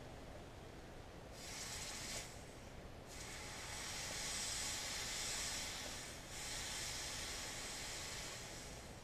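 Red-hot file steel hissing as the top edge of a flint striker is held in a can of water, an edge quench to harden it for throwing sparks off flint. The hiss starts about a second and a half in, breaks off briefly, then resumes and runs on with a short dip midway.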